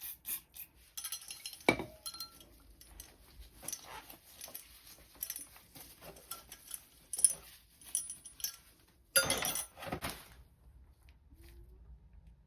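Light metallic clinks and taps as tools and small oil-burner parts are handled during cleaning, with a denser noisy burst lasting about a second around two-thirds of the way through.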